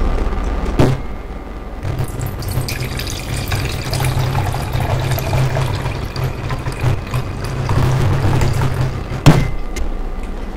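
Honey, ginger and lime drink pouring in a steady stream from a copper shaker into a hammered copper mug for about seven seconds. Near the end comes a single sharp knock, the loudest sound.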